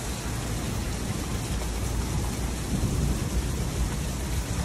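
Heavy downpour of rain falling steadily and splashing onto a flooded street, with a continuous low rumble underneath.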